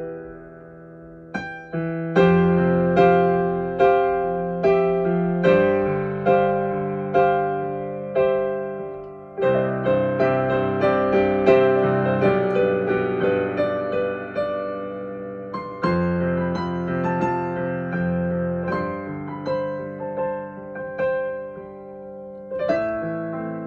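Solo piano or keyboard improvising slow, gentle sustained chords, a new note or chord about once a second, filling out in the middle and thinning again towards the end.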